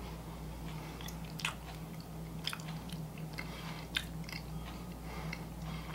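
A man biting into and chewing a soft iced orange cookie: faint, scattered mouth clicks and chewing sounds over a low steady hum.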